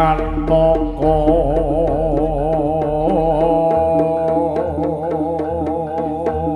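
Live jaranan music on a loud sound system: a singer holds a long, wavering Javanese sung line over steady gamelan-style instrument tones and regular drum and percussion strokes.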